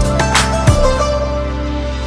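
Background music without singing: an instrumental passage with a few sharp drum hits in the first second over held notes and bass, then held notes only.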